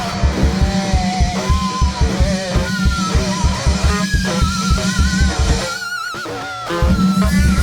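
Heavy metal music: distorted guitar and bass chugging over fast drums, with high held notes wavering in wide vibrato on top. The low end drops out briefly near the end, then the full band crashes back in.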